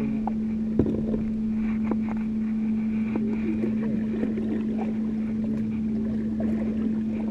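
The motorized banca's engine running with a steady, even hum, under light clicks from a spinning reel being wound in by hand.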